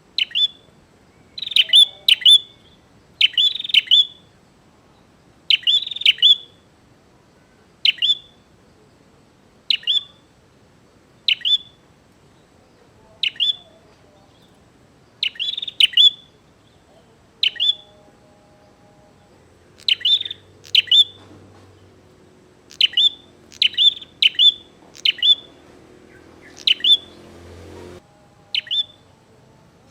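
Prinia (prenjak) singing in full voice: sharp, high chirps, single or in quick runs of two or three, repeated every second or two. This is the challenging song that bird keepers call gacor.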